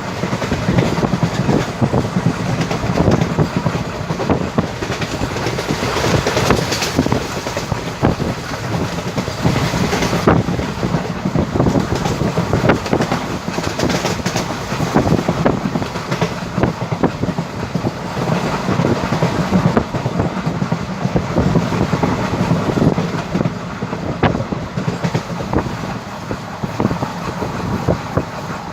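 Express passenger train passing at speed: a steady rumble of coaches, with the wheels clacking over rail joints all through.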